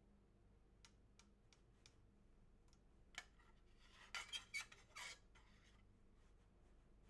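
Faint plastic clicks and light clatters from handling plastic Petri dishes, their lids and a disposable spreader: a few soft clicks, then a short cluster of louder clatters about four to five seconds in.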